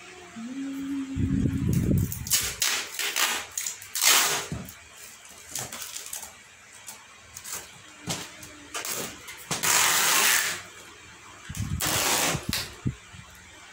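Clear packing tape pulled off its roll in several noisy strips and pressed onto a cardboard box, the longest pull about ten seconds in, with low thumps of the carton being handled near the start and near the end.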